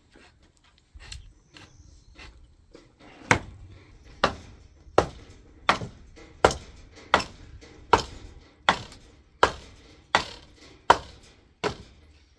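A steady run of sharp wooden knocks, about three every two seconds, from a wooden pole being struck up against a beam of a timber roof frame. Fainter, scattered knocks come before the run starts about three seconds in.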